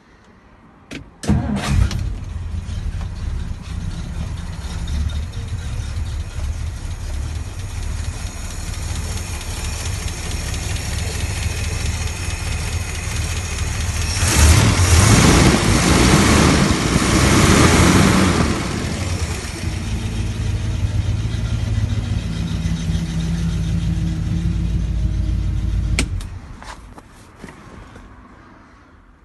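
A 1960 Studebaker Hawk's engine is started with a short crank, catching about a second and a half in and then running steadily. It is louder for a few seconds around the middle, then is switched off near the end and runs down.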